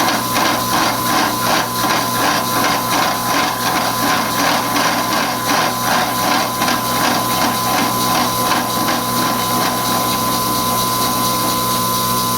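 Milling machine driving a slitting saw through a half-inch-thick steel bar, a steady machining whine with a rhythmic pulse of about three strokes a second. The pulse gives way to a steadier running sound near the end.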